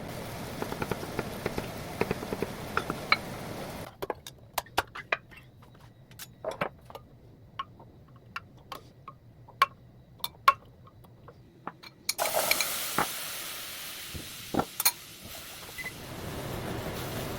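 Kitchen cooking sounds: utensils clicking and tapping against a pan or bowl. A steady hiss, like food sizzling in a pan, runs through the first four seconds and comes back about twelve seconds in, with a quieter stretch of scattered taps between.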